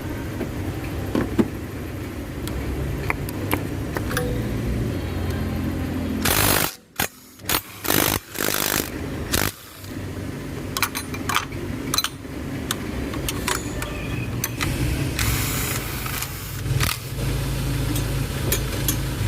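Hand tools clicking and clinking on metal as a battery terminal and engine parts are undone, over a steady low engine hum. The hum cuts out abruptly several times between about six and ten seconds in.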